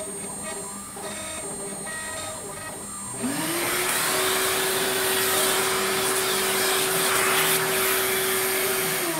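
Vacuum cleaner switched on about three seconds in, its motor quickly spinning up to a steady whine under a loud rush of air as the hose sucks up wood chips. Near the end it is switched off and the whine starts to wind down.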